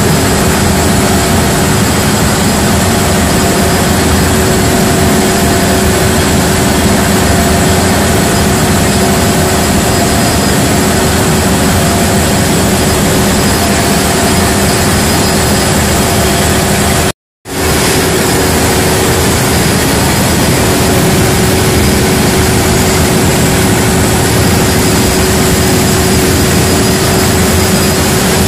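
Large diesel generator engine running loudly and steadily, a dense machine noise with steady tones through it. About two-thirds of the way through, the sound cuts out completely for a split second and then comes straight back.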